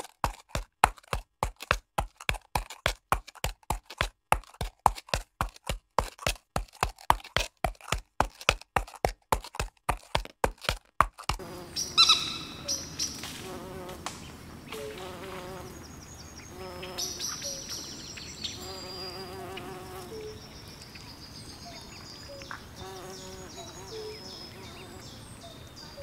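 A horse's hooves striking concrete at a fast walk: an even clip-clop of about four steps a second. About eleven seconds in it gives way to a swamp ambience of buzzing insects, chirping bird calls and croaking frogs.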